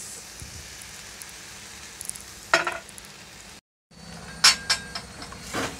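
Tomato and cabbage stir-frying in a wok with a steady sizzle, broken by a few sharp clinks and knocks from stirring, most of them near the end. The sound drops out for a moment about two-thirds through.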